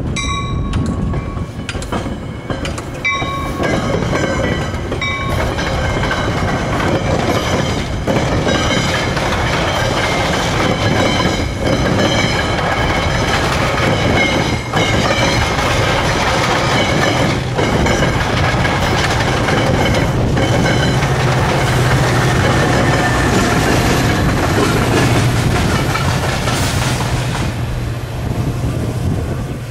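Metra commuter train of bi-level coaches rolling past at close range, its wheels clicking over rail joints, with a few short pitched tones in the first few seconds. From about two-thirds of the way through, the low steady drone of the pushing diesel locomotive's engine rises as it comes near.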